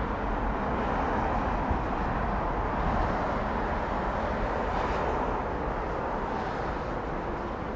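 Steady, distant noise of airliner jet engines at low taxi thrust, a low rumble under an even hiss, as an Airbus A319 turns onto the runway to line up.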